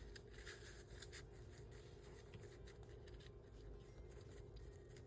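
Near silence with faint scattered rustles and light taps of paper and card being handled over a low steady hum.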